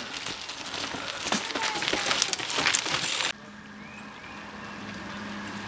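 Mountain bike tyres crunching and clattering over dry leaves and rock, with dense clicks and knocks that grow louder as the rider comes close. About three seconds in, the sound cuts off abruptly to a quieter steady low hum.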